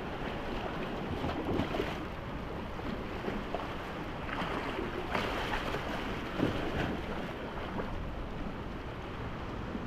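Steady wind noise on the microphone over gently lapping sea water.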